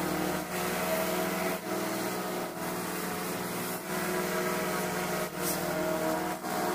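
The 190cc Honda single-cylinder four-stroke engine of a walk-behind push lawn mower running steadily at a constant speed while cutting grass, with a few brief dips in level.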